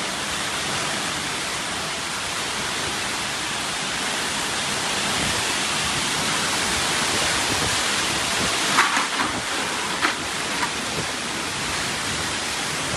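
Heavy rain driven by strong wind, a steady dense hiss. A few brief, sharper sounds stand out about nine and ten seconds in.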